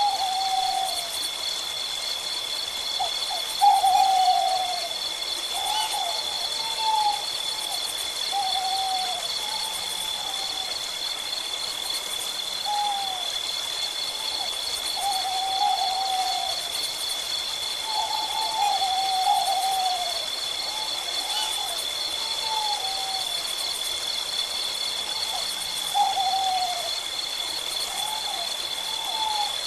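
Owl calling: a run of short, falling hoots repeated every second or two at irregular intervals, some in quick pairs, over a steady high-pitched drone.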